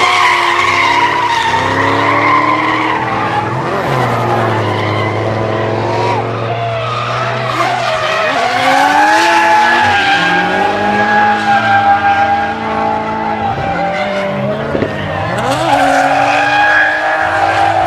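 Drift cars' engines revving hard, rising and falling in pitch with the throttle, while their tyres squeal as the cars slide sideways through a corner.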